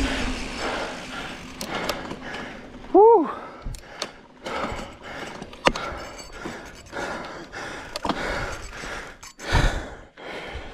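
A mountain-bike rider breathing hard after the ride, with clicks and knocks as the helmet camera is handled. About three seconds in comes a brief pitched sound that rises and then falls, and there is a dull thump near the end.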